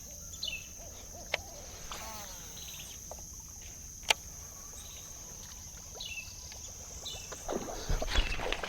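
Swamp ambience: a steady high-pitched insect drone, with short falling bird chirps a few times. Two sharp clicks, about a second in and about four seconds in.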